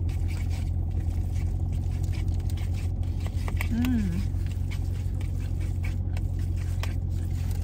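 Steady low hum inside a parked car's cabin, with quiet eating noises: a plastic fork scraping in a plastic bowl and chewing. A short hummed "mm" comes about four seconds in.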